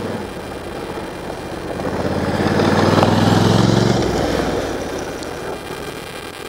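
A motorcycle riding past on a gravel road: its engine note builds as it approaches, is loudest about three to four seconds in, then fades as it rides away.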